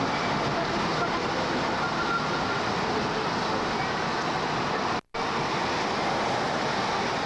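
Steady road and wind noise inside a car cruising at freeway speed. The sound drops out completely for a split second about five seconds in.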